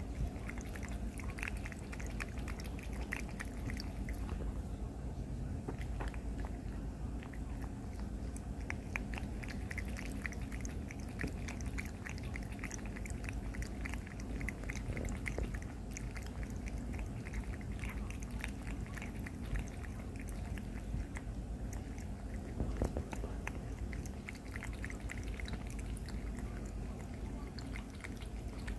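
Cat lapping water from a pet water fountain: runs of quick, small wet tongue laps with short pauses between spells.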